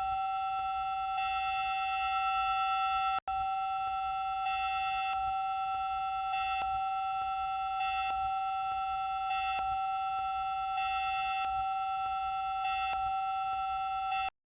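Emergency Alert System attention signal: two steady tones sounding together, held for about fourteen seconds with a brief dropout about three seconds in, then cutting off suddenly.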